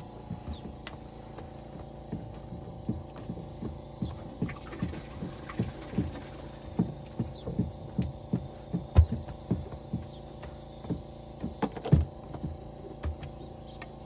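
Portable cow milking machine running: a steady pump hum under a rhythmic pulsing, about three pulses a second, as the teat cups draw milk, with a few louder thumps around the middle and near the end.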